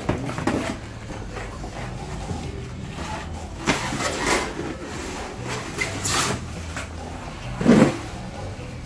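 Irregular knocks, scrapes and rustles of a scooter being unpacked and handled, with a short sharp hiss about six seconds in and a brief louder pitched sound near the end.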